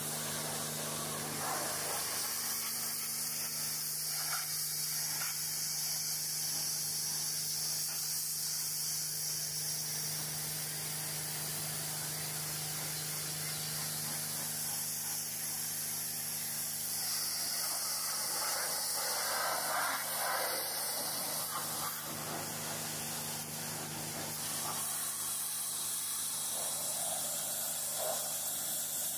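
A 2000 PSI hot-water pressure washer jet spraying a truck's fender and wheel: a steady hiss of water spatter, with a steady low hum underneath.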